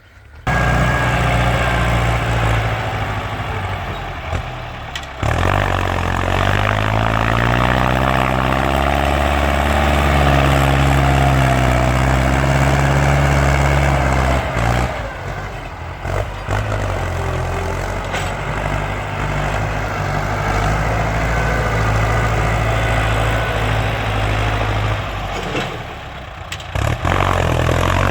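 Ford farm tractor engine running very loud, its pitch climbing and easing as the throttle is opened and backed off, with brief dips in between.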